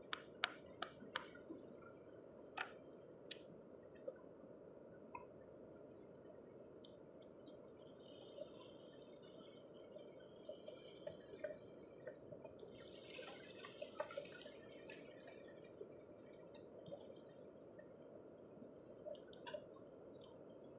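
Sharp clicks of a hand-held stone knocking at small rock oysters on a boulder, several close together in the first second or so and a couple more shortly after. Then scattered fainter clicks and crackles as the shell is picked apart by hand, over a faint steady hiss.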